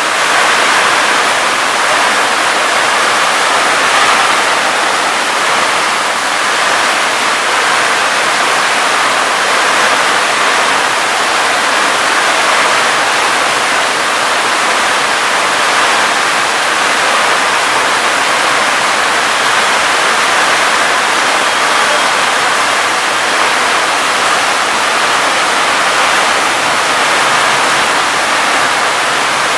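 Heavy rain falling in a steady, loud downpour onto roofs, with water pouring off the roof edges.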